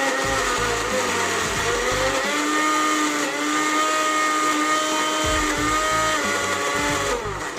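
Electric mixer grinder running, grinding raw boneless chicken with onion and spices into a paste; the motor's whine shifts in pitch as it works and it cuts off near the end.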